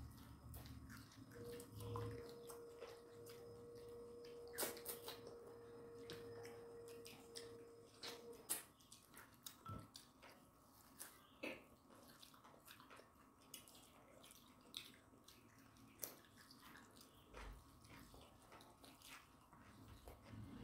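Faint eating sounds from two people eating rice and chicken curry by hand: soft chewing and lip smacks, and fingers mixing rice on steel plates, heard as scattered small clicks. A faint steady tone of unknown source sounds from about a second in until about eight seconds in.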